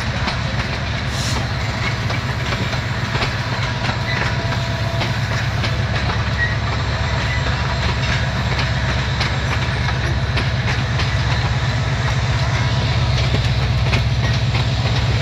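Bangladesh Railway intercity passenger coaches rolling past on the track: a steady low rumble with many short clicks of the wheels over the rails, growing a little louder near the end.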